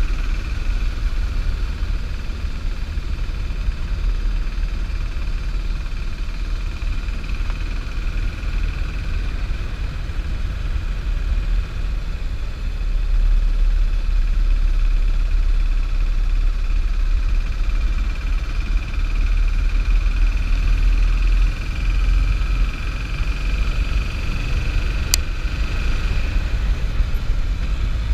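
Motorcycle engine running steadily while riding along, heard over a heavy low rumble of wind on the camera's microphone. The sound grows louder for several seconds around the middle, and a single sharp click comes near the end.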